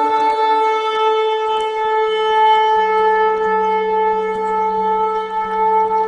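Shofar sounding one long, steady held blast. A fainter, lower steady tone joins about two seconds in.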